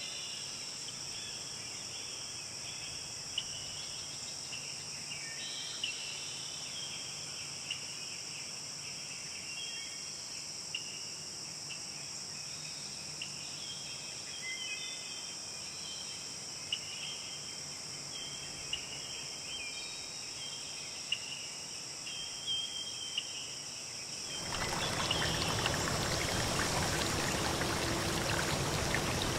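A steady high-pitched insect chorus, such as crickets, with scattered short chirps. About 24 seconds in, it cuts suddenly to louder running water, like a stream or pouring flow.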